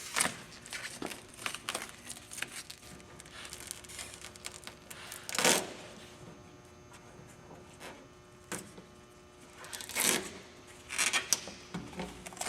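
Old glued-in rubber door weatherstrip being pulled and torn off a 1973–1979 Ford truck door, ripping away from the adhesive in irregular tugs and rips. The loudest rips come about five and a half seconds and ten seconds in.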